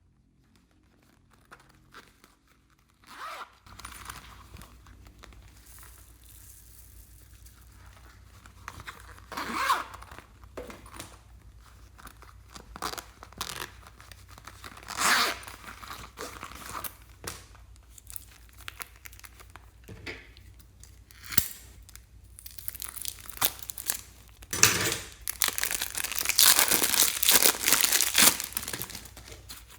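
Slime being squished, stretched and folded by hand, crackling and popping with trapped air. It starts a few seconds in with scattered pops and becomes dense crackling in the last several seconds.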